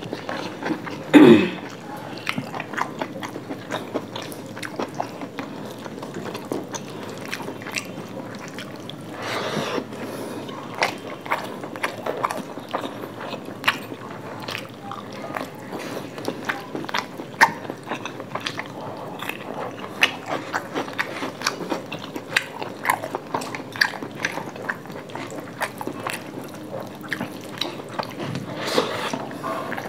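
Close chewing and biting sounds of people eating fried rice and chilli chicken by hand: many small wet clicks and smacks of mouths and fingers, with one brief louder sound about a second in.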